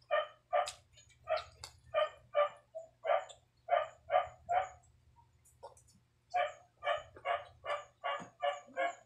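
A dog barking in two quick runs, about two to three short barks a second, with a brief pause in the middle.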